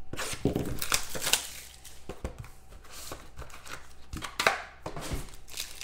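A cardboard trading-card box and its foil card packs being handled on a tabletop: irregular rustling, scraping and light taps, with a longer swish of wrapper crinkling about four and a half seconds in.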